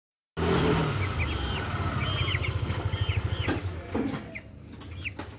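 Young chickens peeping in short, repeated chirps over a loud, pulsing low rumble that fades about four seconds in.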